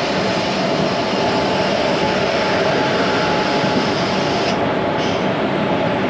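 Duronto Express passenger train running, a steady rumble and rush of wheels on rail with a faint, even whine.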